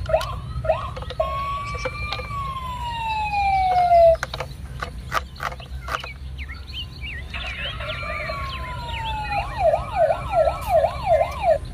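Electronic siren sound effect from a toy fire truck's push-button sound module: a long tone sliding steadily down, then after a gap another falling tone that breaks into a fast up-and-down wail, about three swings a second, near the end. Light plastic clicks from the toy being handled.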